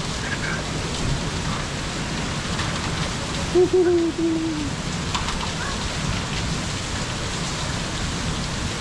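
Heavy rain falling steadily, an even hiss. About three and a half seconds in, a short pitched sound, voice-like and slightly wavering, rises briefly above the rain.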